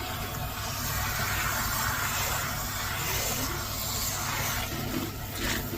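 Hair dryer running with a steady airy noise and a low hum underneath.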